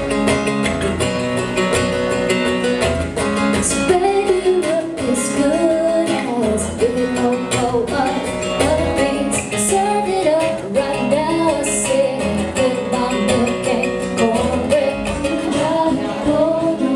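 A song played live on a strummed acoustic guitar, with a voice singing that comes in about four seconds in.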